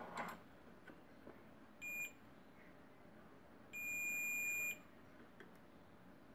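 Digital multimeter's continuity buzzer beeping as its probes bridge a MOSFET in the motherboard's VRM section: a short beep about two seconds in and a longer, roughly one-second beep around four seconds in, each a steady high tone. The beep marks the MOSFET as shorted.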